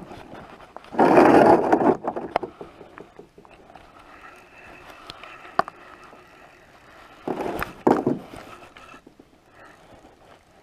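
Handling noise at an ice fishing hole: two short bursts of rustling and scraping, with scattered light clicks between them, as hands work a spinning reel and line.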